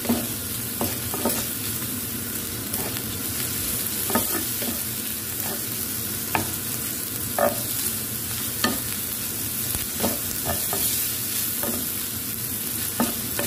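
Thin marinated beef strips sizzling in a hot ridged grill pan, with a steady hiss. A wooden spatula scrapes and knocks against the pan at irregular moments as the meat is stirred.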